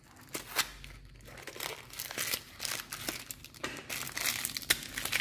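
Packaging crinkling and rustling as it is handled, with scattered sharp clicks. It is most likely the wrapper coming off a new 6303 ball bearing.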